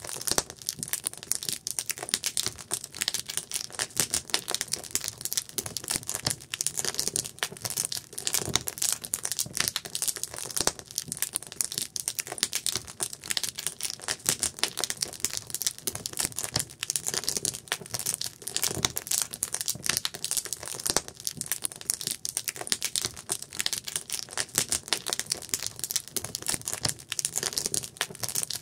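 Wood campfire crackling and popping steadily, a dense run of sharp irregular snaps.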